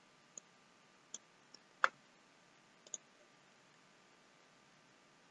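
Computer mouse button clicking, about six short faint clicks over the first three seconds, the loudest a little under two seconds in.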